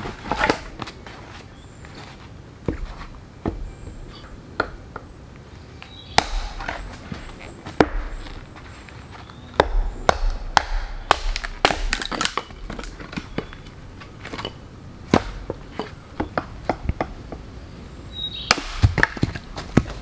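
Axe splitting rock-hard firewood on a wooden chopping block: a run of sharp chops and knocks at irregular intervals, bunched in quick clusters near the middle and again near the end.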